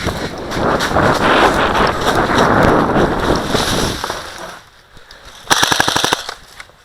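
Wind rushing over the microphone for about four seconds, then near the end a short full-auto burst from an airsoft gun: about a dozen rapid, evenly spaced cracks in under a second.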